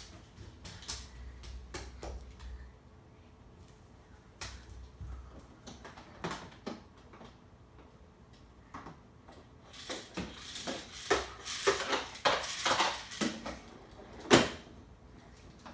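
Scattered clicks and knocks of hard objects being handled. They turn into a run of clattering and rattling about two-thirds of the way through, and a single sharp knock near the end is the loudest sound.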